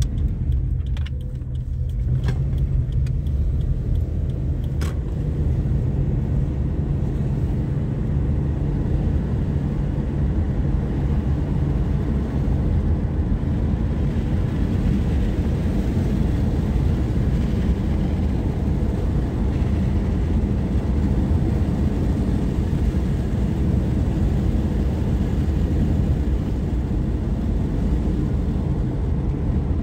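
Steady low rumble of a car's tyres and engine heard from inside the cabin while driving, with a few faint clicks in the first few seconds.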